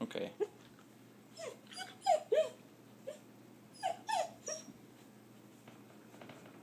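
German Shepherd puppy whining in short, high-pitched whimpers, several in a row with pauses between them.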